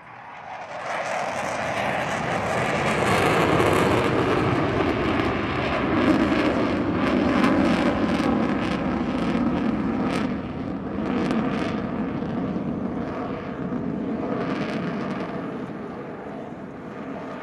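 Airplane flying low past. Its engine noise swells within the first second, stays loud through the middle with a falling pitch, then slowly fades.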